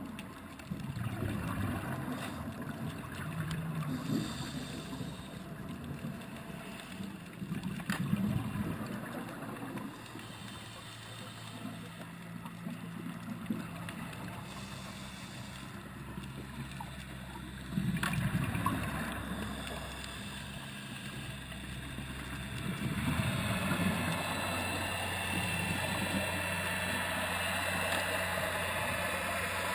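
Underwater sound at a scuba dive: scuba divers' exhaled bubbles rise in irregular gurgling surges over a steady low hum, and two sharp knocks, about eight and about eighteen seconds in, come from a coconut shell being struck against the rock to call the fish to feed.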